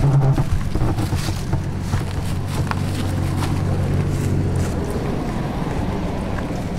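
A steady low engine hum that fades out about two-thirds of the way through, with scattered faint clicks and wind noise on the microphone.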